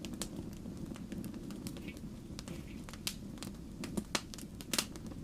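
Wood fire crackling, with irregular sharp pops and snaps over a steady low rumble; the loudest pops come in the second half.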